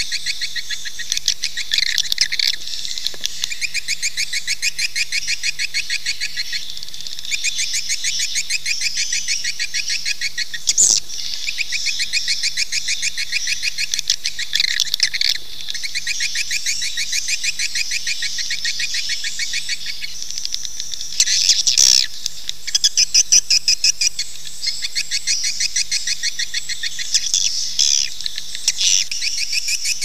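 Recorded swiftlet calls: a dense, continuous twittering of rapid chirps, the lure call played in swiftlet houses to draw swiftlets in to roost and nest. A sharp click comes about 11 seconds in and a louder one at about 22 seconds.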